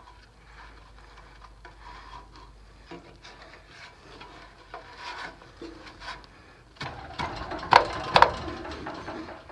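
Hand-work noises from tools at a VW Beetle engine during valve adjustment: light scrapes and clicks, turning into louder rubbing and scraping with two sharp clicks about seven seconds in.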